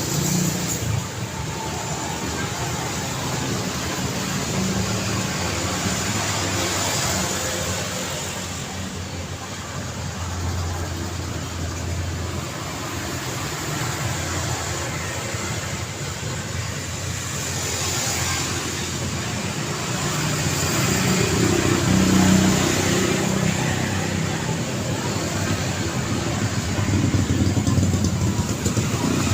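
City street traffic: a steady rush of cars passing, with engines humming and tyre noise that swells as vehicles go by, several times over.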